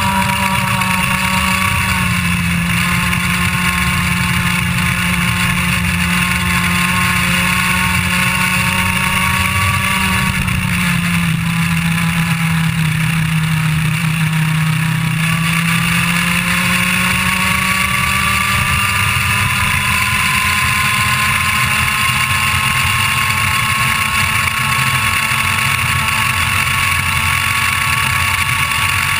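IAME Leopard 125cc two-stroke kart engine running hard, heard on board. Its pitch sags from about ten seconds in as the engine speed falls to under 10,000 rpm through a corner, then climbs steadily from about sixteen seconds as the kart accelerates back past 13,000 rpm onto the straight.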